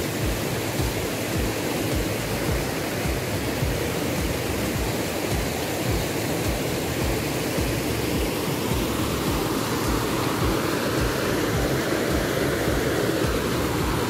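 Steady rush of a rocky stream's water pouring through rapids and over small cascades, with low, irregular thumps underneath.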